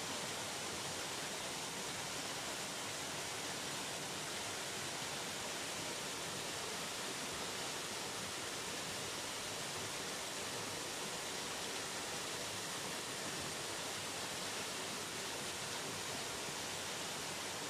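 Steady rushing of water falling down the stone wall of the mill race, an even hiss with no breaks.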